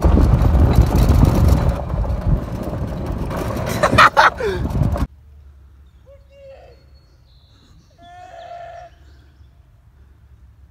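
Loud rushing, rumbling noise from riding in a golf cart over a gravel road, heaviest in the low end like wind on the microphone. It cuts off suddenly about five seconds in to a faint steady hum, with a couple of short faint distant calls.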